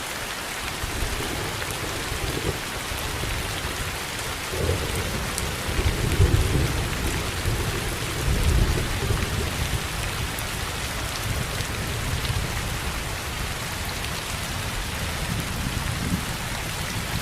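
Steady rain falling, an even hiss throughout. Thunder rolls in low under it about four seconds in, rumbling loudest twice over the next five seconds before fading back into the rain.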